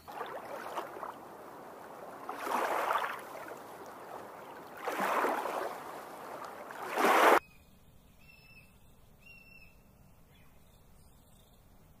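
Water sloshing in three swelling surges, the last the loudest, cut off abruptly about seven seconds in. Then faint, short, high bird chirps.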